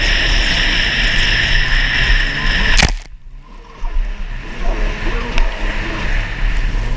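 Stand-up race jet ski's engine revving up and down under a steady rush of wind and spray. About three seconds in there is a sharp slap, and the rush drops out for about a second before engine and spray noise return.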